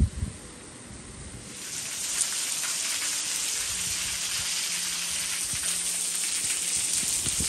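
Heavy rain pelting down on a swimming pool and a wet deck, a steady dense hiss that sets in about one and a half seconds in. Before it, a brief low rumble of wind on the microphone at the very start.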